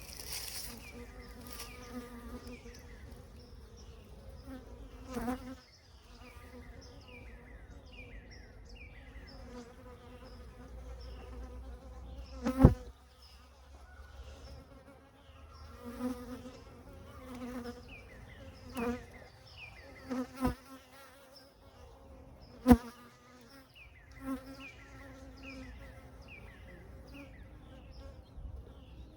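Honeybees buzzing around the hive: a steady hum, broken by two sharp knocks about halfway and two-thirds of the way through, and a few smaller ones.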